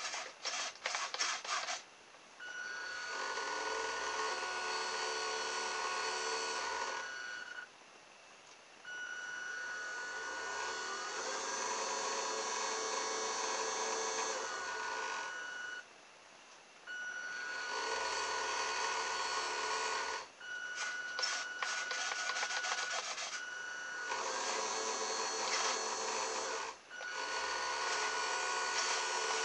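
Small electric motor of a radio-control boat conversion driving its propeller in air on the bench, run in six bursts of a few seconds each with short pauses, speeding up and slowing at each start and stop, with a steady high whine over the running noise. A few quick clicks come just before the first run.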